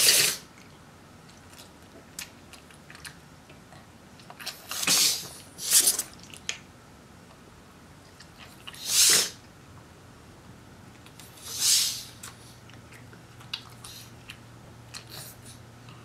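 A pug sneezing again and again: a sharp sneeze at the start, then about four more, a few seconds apart, with a few fainter snorts near the end.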